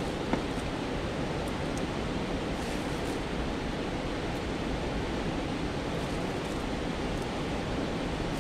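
Steady rushing of water from a mountain stream, an even wash at a constant level, with a few faint high ticks over it.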